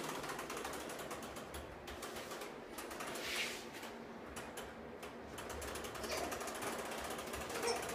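Steady, rapid mechanical clicking and rattling from a small wheeled toy's plastic wheels or gear mechanism rolling along carpet.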